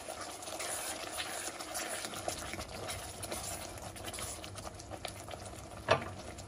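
Thick chilli sambal bubbling and sizzling in a wok while a spatula stirs it, with sliced onions cooking down until they wilt. One sharp knock comes near the end.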